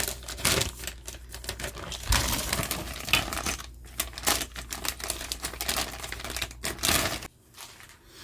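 Clear plastic bag crinkling and rustling as plastic model-kit parts trees are handled and drawn out of it, with sharp irregular clicks of the plastic sprues knocking together. It stops about seven seconds in.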